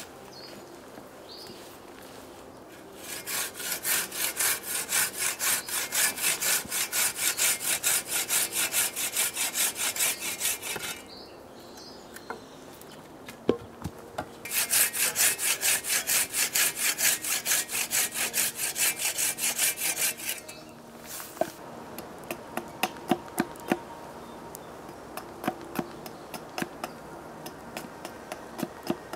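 Samurai D-540 pruning saw cutting through a log in rapid, even strokes, in two long bouts with a short pause between. Scattered sharp knocks on wood follow in the last third.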